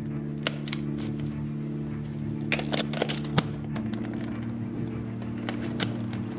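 Scattered sharp clicks and taps over a steady low hum.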